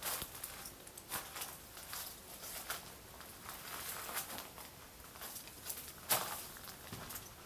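Footsteps on a dirt path strewn with dry leaves and loose stones, in an irregular walking rhythm, with one louder step about six seconds in.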